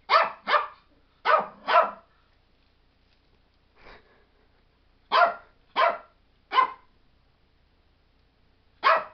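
Pomeranian barking in sharp single yaps: four quick barks at the start, three more after a pause, and one near the end. The barks are warning barks at an unfamiliar plastic shopping bag that the dog is wary of.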